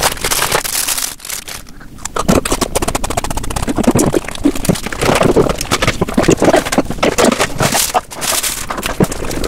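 Close-miked mukbang eating sounds: crackling and crunching from a snack package being handled and food being bitten and chewed, with a quieter stretch about a second in.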